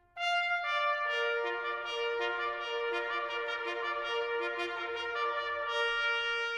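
Bugle call: after a brief pause, a phrase of long held brass notes, one of them sustained for several seconds.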